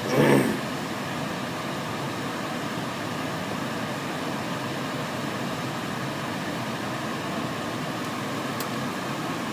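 Steady fan-like hiss, with a brief louder sound in the first half second and a faint click near the end.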